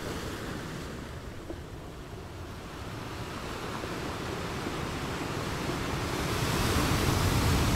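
Shallow river water rushing over stony riffles, a steady rush that grows louder toward the end.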